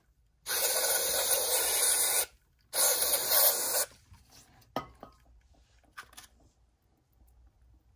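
Aerosol can of QD electronic contact cleaner spraying in two bursts, the first nearly two seconds long and the second about a second, to flush sticky crud out of a car navigation controller's knob mechanism. Faint handling clicks follow.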